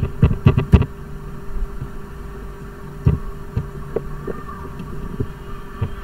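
Computer keyboard typing picked up as dull thumps by the microphone: a quick run of keystrokes in the first second, then a few scattered single key or mouse clicks. A steady low hum runs underneath.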